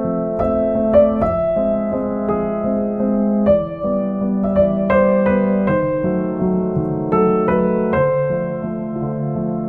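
Background piano music: a slow melody of single notes struck over held chords.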